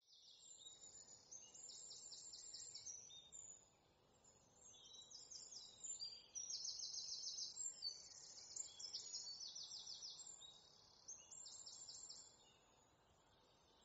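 Faint songbird song: a series of quick, high trills and chirps, several phrases with short pauses between them, over a faint background hiss.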